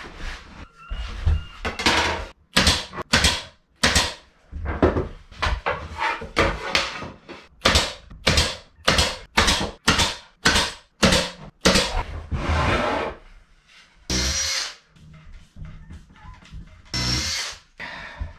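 23-gauge pin nailer firing pins in quick, irregular succession, about twenty short shots, as mitred box corners are tacked together. Near the end a cordless drill runs in a few longer whining bursts.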